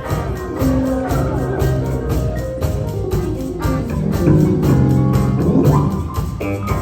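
Saxophone ensemble of alto, two tenors and baritone with bass guitar and piano playing a jazz tune live, with a steady beat and moving melody lines over a sustained low part.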